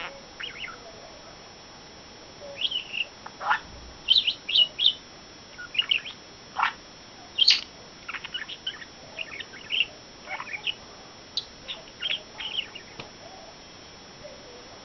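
Pet budgerigar chattering: a run of short, high chirps and clicks in irregular clusters, starting about two and a half seconds in and thinning out near the end.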